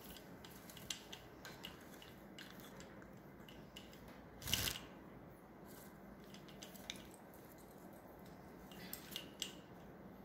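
Scattered light clicks and taps from a green-cheeked conure's beak and claws on its cage, perch and toys, with one short, louder burst of noise about four and a half seconds in.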